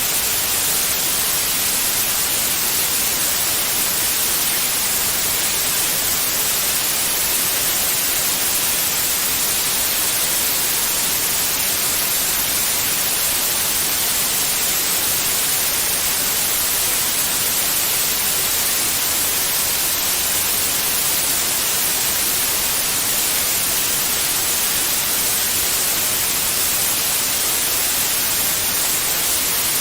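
Steady white noise: an even, unchanging hiss, brightest in the high end, played continuously as a soothing sound for babies.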